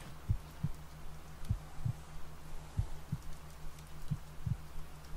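Slow heartbeat, soft paired lub-dub thumps repeating about every 1.2 seconds, over a steady low drone of theta-wave tones and a faint hiss of rain.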